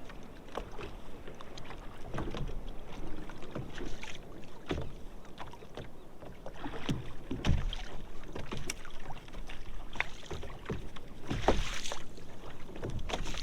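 Kayak paddle strokes splashing in the water, a few swells of noise a few seconds apart, with small clicks and knocks in between.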